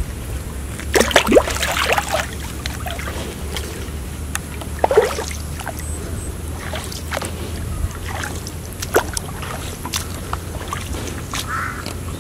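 Water splashing and sloshing as a hooked carp pulls a floating plastic-bottle float through shallow water. There is a burst of splashes about a second in and another around five seconds in, over a steady low rumble.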